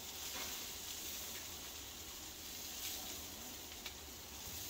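Food sizzling on a barbecue over a fire: a steady hiss with a few faint crackles.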